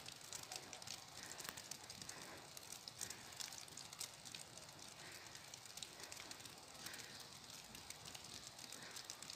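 Faint outdoor ambience with light, irregular crackling ticks.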